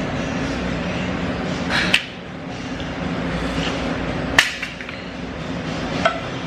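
Iron weight plates clanking against the bar or each other three times, about two seconds apart, each a sharp metallic hit with a short ring. The middle hit is the loudest, over a steady gym background noise.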